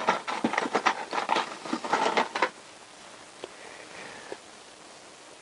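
Quick clicking and rustling of small parts being handled for about two and a half seconds, then quieter with a few faint ticks.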